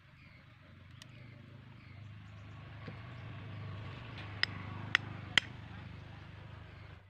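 Metal spoon clinking against a ceramic plate: three quick ringing clinks about half a second apart, over a low rumble that swells and fades.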